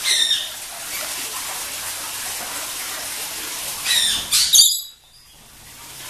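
Sulphur-crested cockatoo calling: a short falling call at the start, then a louder run of high calls about four seconds in that cuts off suddenly, over a steady background hiss.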